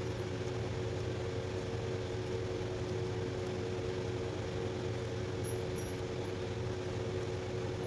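A steady mechanical hum with two constant mid-pitched tones over a low drone, unchanging throughout.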